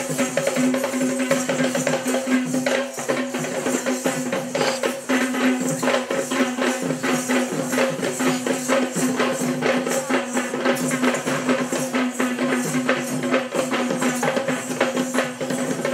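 Traditional Sri Lankan Kandyan dance drumming: drums beaten in a fast, dense rhythm with jingling, over a steady held tone.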